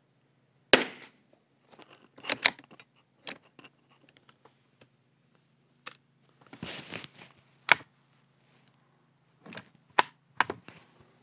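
A single .22 rimfire rifle shot from a Savage Mark II bolt-action about a second in, followed by a series of sharp metallic clicks and clacks as the bolt is worked and the rifle is reloaded.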